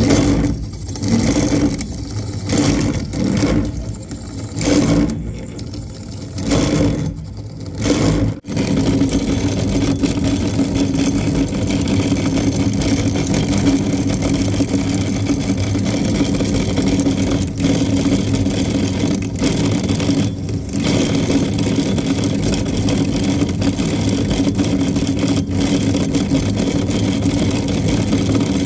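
Furnace draft inducer blower motor running with a loud hum, uneven and rising and falling for the first eight seconds or so, then steady. The motor is failing: it spins slowly and makes a loud noise.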